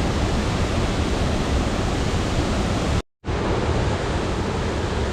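Waterfall rushing: a steady, dense noise of falling water. It cuts out completely for a split second about three seconds in, then resumes.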